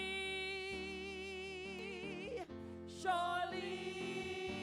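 A woman singing the word 'Surely' in two long held notes with vibrato, a short break between them, over sustained instrumental chords.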